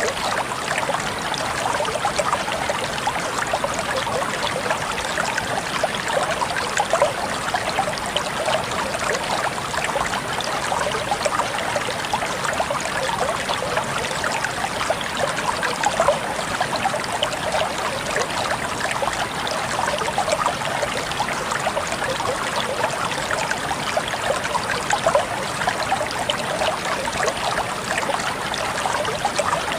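Water flowing steadily over rocks, with a continuous splashing, bubbling patter.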